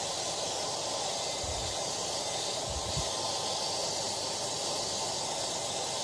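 Handheld hair dryer running steadily, a continuous even rush of blown air that holds the same strength throughout.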